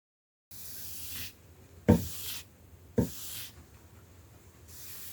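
Scratchy rubbing strokes on wood, broken by two sharp knocks about a second apart as wooden chair parts are set down or bumped.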